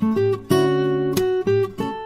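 Background music: acoustic guitar strumming chords, the chord changing about every half second.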